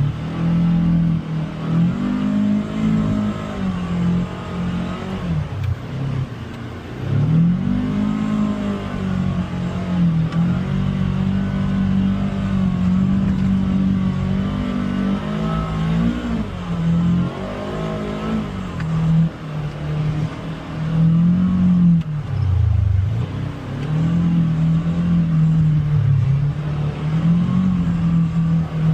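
Side-by-side UTV engine under load on a trail, its revs repeatedly rising and falling as the throttle is worked, with one deep drop in revs a little over three quarters of the way through.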